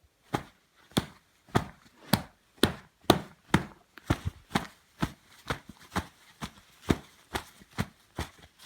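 A steady run of sharp hits, about two a second, as hand puppets trade blows in a fight.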